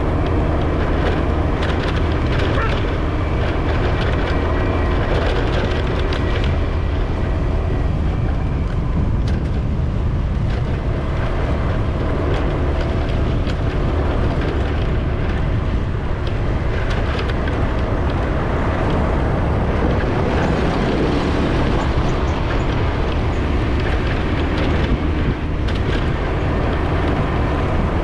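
A vehicle on the move: steady engine and road noise, strongest in the low end, with no sudden changes.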